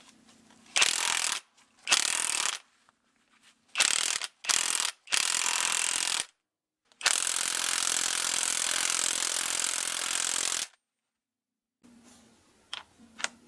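A DCA ADPB280 cordless impact wrench, just repaired, runs in several short trigger bursts and then one longer run of about three and a half seconds, with a gloved hand gripping its anvil. A couple of light clicks come near the end.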